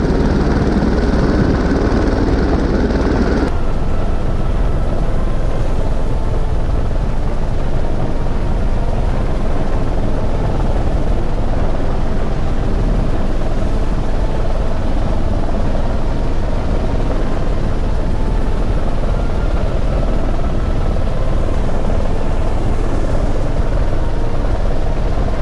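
Helicopter running close by: a loud, steady rotor and engine noise. The sound changes abruptly about three and a half seconds in, as at a cut between shots.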